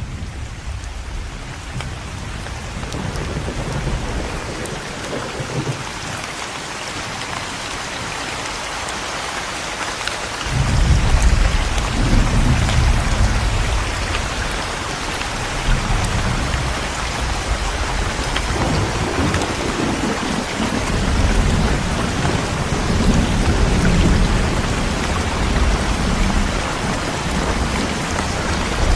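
Steady heavy rain falling, with thunder rumbling low underneath. The rumble fades early on, returns strongly about a third of the way in, and then rolls on in waves.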